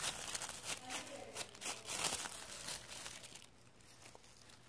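Plastic shopping bag crinkling as it is scrunched in the hand, a run of soft crackles that dies away about three and a half seconds in.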